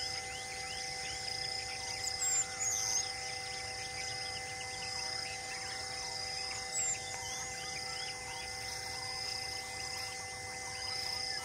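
Tropical grassland ambience: insects trilling in a steady pulsing chorus and many small birds chirping, with a few louder, sharp high bird calls about two to three seconds in and again near seven seconds. Under it runs a steady hum of held tones.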